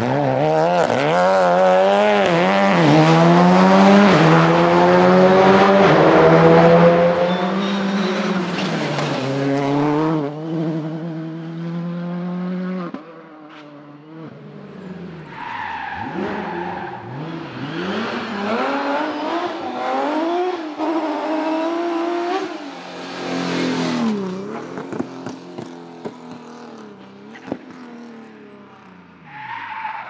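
Rally car engines at full stage pace, several cars passing in turn. Each one revs hard and climbs through the gears as it powers out of a corner, the pitch rising and dropping back at every shift. The first pass is the loudest, and the later ones are fainter.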